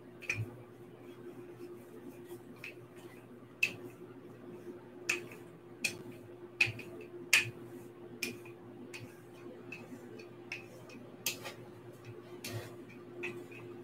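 Rolling pin working pie dough on a wooden butcher-block board: irregular sharp clicks and knocks every second or so, over a steady low hum.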